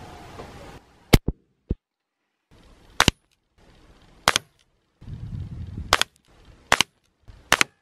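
Beeman QB Chief .22 PCP air rifle firing a string of about six sharp shots, each a short crack, some followed closely by a smaller click, with dead silences between them.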